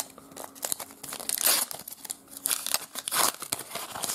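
Thin paper wrapper of a Panini sticker pack being torn open and crinkled by hand, in several short bursts, the loudest about a second and a half in.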